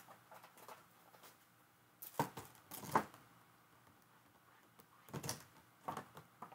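Light clicks and knocks of small craft items being handled and set down on a desk, in a cluster about two to three seconds in and another about five to six seconds in.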